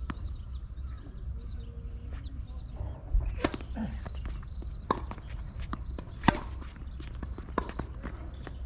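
Tennis balls being struck with a racket and bouncing on a hard court: a string of sharp pops starting about three seconds in, roughly one a second, the loudest near three and six seconds in.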